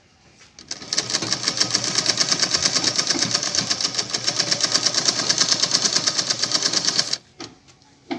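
Manisha sewing machine stitching fabric at a steady fast rate, a rapid even ticking of the needle mechanism. It starts up about a second in and stops about a second before the end.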